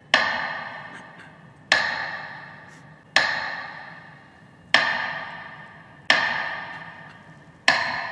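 A bell tolling: six strikes about a second and a half apart, each ringing out and fading before the next.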